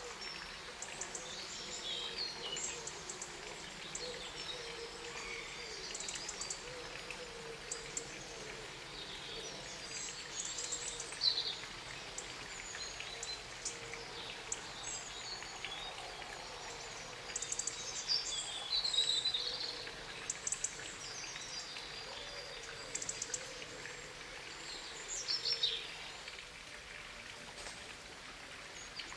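Several birds chirping and calling in short, scattered phrases over a steady outdoor background hiss, with a few louder bursts of song.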